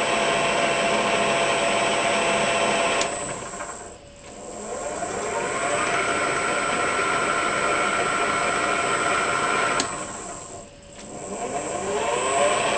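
Metal lathe driven by a variable-frequency drive, running with a steady electronic whine. Twice a selector switch clicks and the motor winds down, then ramps back up with a rising whine: the VFD reversing the spindle to run the threading tool back with the half nut engaged.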